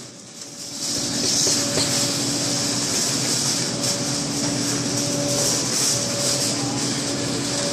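Steady indoor grocery-store background noise: an even hiss with a faint, on-and-off hum, dipping briefly at the start.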